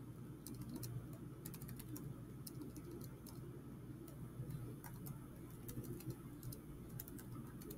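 Faint, irregular clicking of keys being typed on a Chromebook keyboard, with short pauses between bursts of keystrokes.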